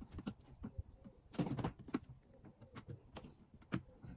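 Hard plastic panels of a storage box being handled and fitted together by hand: scattered clicks and knocks, with a louder clatter about a second and a half in and a few single sharp clicks after it.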